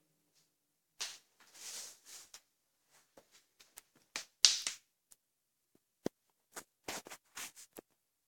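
Irregular sharp clicks and brief rustling scrapes, the loudest about four and a half seconds in, with quiet gaps between them.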